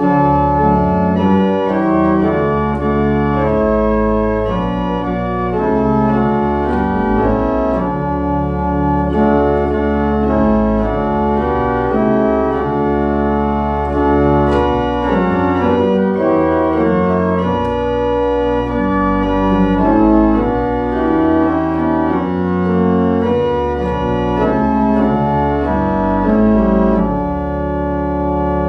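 Organ playing a hymn tune in full sustained chords over a deep bass line, the chords changing about once a second.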